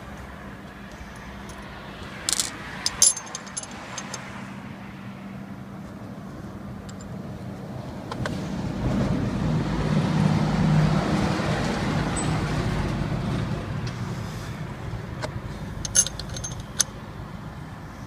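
Sharp metallic clicks and clinks of parts being handled and fitted on an elebia lifting hook's clutch assembly: a cluster about two to three seconds in and two more near the end. In the middle a passing vehicle's rumble swells and then fades.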